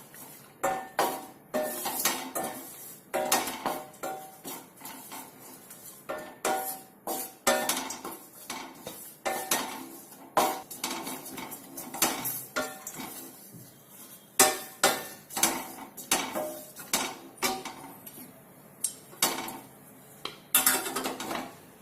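A metal spatula clinking and scraping against a pan in irregular strikes, each with a short metallic ring, while pieces of dried ginger are dry-roasted.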